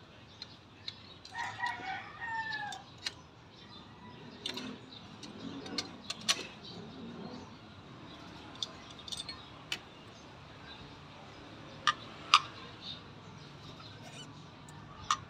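A rooster crowing once, about a second in, with a falling end. Scattered sharp clicks and knocks follow, the loudest two close together near the end.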